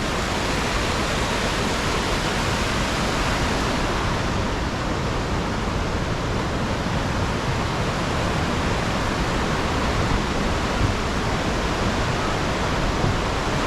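Steady rush of fast-flowing white water, a full even noise with no breaks.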